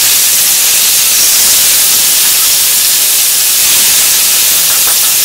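Marinated chicken pieces sizzling in hot oil in a kadai, a steady loud hiss as the wet yogurt marinade hits the oil just after the chicken goes in; a spoon stirs the pieces toward the end.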